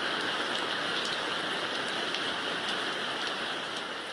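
Space-sound audio track for Jupiter's moon Thebe, which sounds like rain: a steady hiss with faint scattered ticks, easing slightly near the end.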